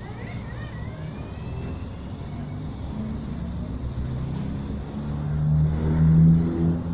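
Music fading in over a low steady rumble, its held notes growing louder about five seconds in.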